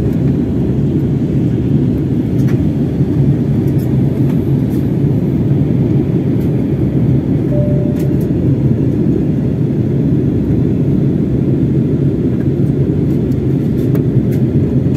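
Steady cabin noise of an Airbus A320 descending toward landing: a low, even drone of engines and airflow heard from a window seat.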